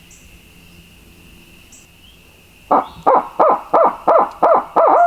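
Barred owl hooting: a quick run of about seven loud hoots, each dropping in pitch, at roughly three a second, ending in one long drawn-out note that falls away. It starts a little under three seconds in.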